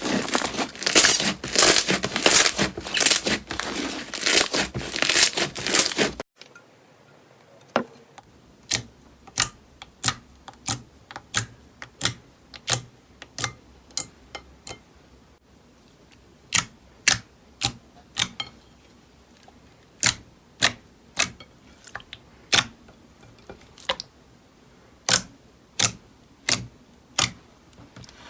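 Crunchy slime being squeezed and worked by hand, a dense, loud crackling and crunching. It cuts off suddenly about six seconds in, and after a short quiet come single sharp clicks and pops from slime being pressed, about one a second.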